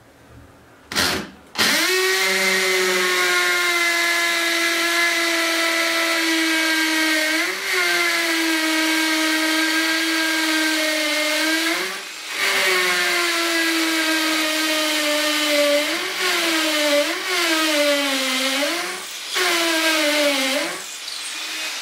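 Einhell TE-CD 18/50 Li-i BL cordless brushless drill motor: a short burst of running, then a steady high whine. It stops briefly twice, dips in pitch and recovers several times near the end, then stops.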